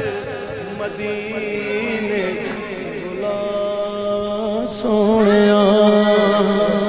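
A man sings a Punjabi devotional kalam into a microphone, drawing out long, wavering held notes with no clear words. The singing gets louder about five seconds in.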